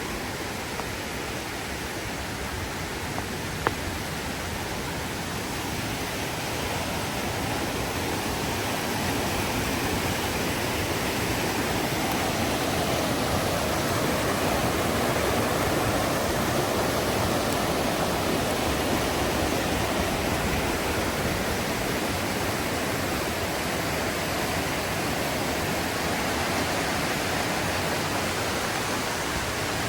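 Mountain river rushing over rocks, a steady churning flow that grows somewhat louder from about eight seconds in. A single sharp click sounds about four seconds in.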